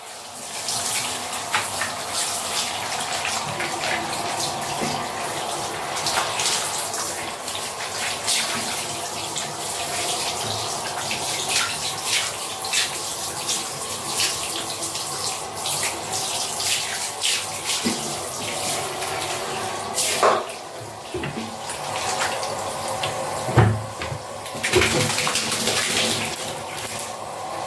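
Handheld shower head spraying water over a small dog and onto a tiled floor: a steady hiss and splatter, dipping briefly a few times near the end.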